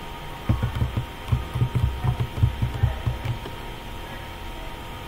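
A quick run of muffled low thuds from keys being typed on a computer keyboard, stopping after about three seconds, over a steady electrical hum.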